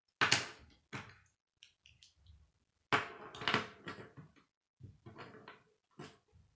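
K'nex plastic rods and connectors being snapped together and handled on a wooden table: irregular sharp plastic clicks and knocks, loudest in a quick cluster about three seconds in.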